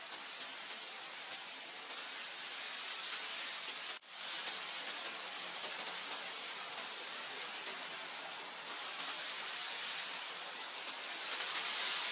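Wind blowing as a steady hissing rush that swells and eases in slow gusts. About four seconds in it briefly cuts out and comes straight back.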